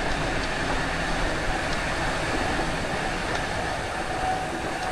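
Mountain bike rolling fast down a rough dirt trail: a steady rush of tyre noise and wind on the microphone, with a few faint clicks from the bike.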